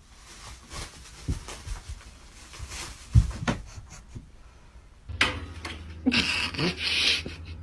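Faint rustling and soft thumps from a cat playing with a plastic bag on a rug, the sharpest thump about three seconds in. Then, about five seconds in, a Siberian husky makes loud, breathy huffing and whining sounds.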